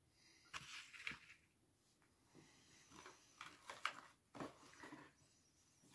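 Near silence broken by faint, scattered rustles and small knocks of packaging and products being handled, about half a second to a second in and again between three and five seconds in.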